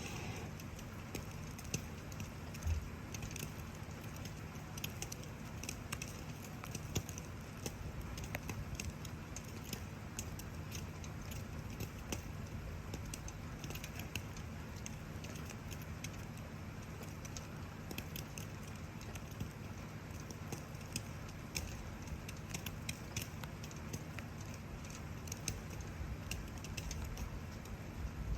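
Wood fire crackling, with irregular sharp pops, while rain falls steadily, over a low rumble of recording noise. A dull thump about three seconds in.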